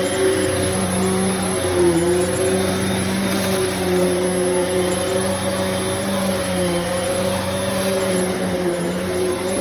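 Hoover MAXLife Elite Swivel bagless upright vacuum cleaner running: a steady motor hum whose pitch wavers slightly.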